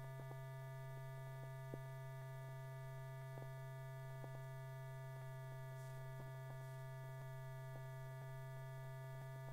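Faint, steady low electrical hum with a few scattered soft clicks: the background noise of an old film soundtrack. No sound of the carts is heard.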